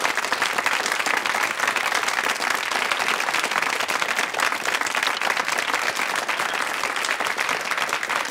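Studio audience applauding, a dense and even clapping of many hands.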